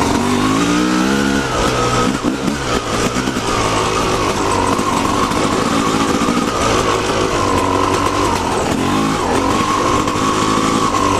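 Yamaha YZ250 single-cylinder two-stroke dirt bike engine running under throttle on a trail ride, its pitch rising and falling as the rider opens and closes the throttle.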